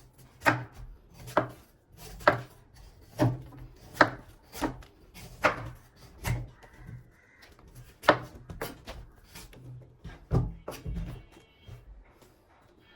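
A blade chopping into palmyra palm fruit (ice apple): about a dozen sharp strikes, roughly one a second, with a short pause a little past the middle, stopping near the end.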